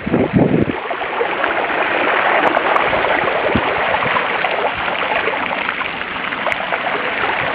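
A mountain bike's front tyre rolling through shallow floodwater over a paved road, throwing up a steady rushing spray of water.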